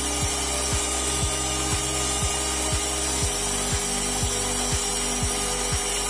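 Handheld vacuum cleaner running steadily with its nozzle pressed to a laptop's cooling vent, drawing out dust.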